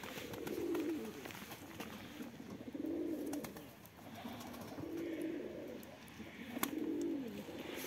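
Domestic pigeons cooing: about four drawn-out coos, each rising then falling, roughly two seconds apart, with a sharp click about two-thirds of the way through.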